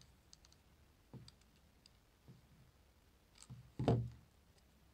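Light metallic clicks and ticks of small screwdriver bits being handled and fitted into a metal precision screwdriver handle, with a louder dull knock about four seconds in.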